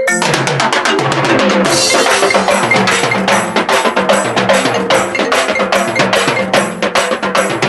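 Ringtone music: an electronic tune with a steady percussive beat of sharp, evenly spaced hits over a bass line.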